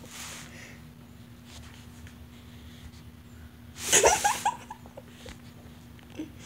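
A person's stifled, breathy laugh: one burst of snickering about four seconds in, with a softer breath near the start.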